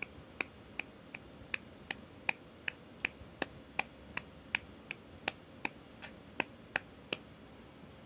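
A hand patting a cat's rump in a steady rhythm, about twenty light pats at nearly three a second, stopping about a second before the end.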